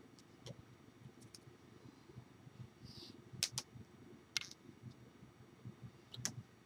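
Several faint, sharp clicks and taps at irregular intervals, including a close pair about halfway through, from hands and fingernails meeting while signing, over low room noise.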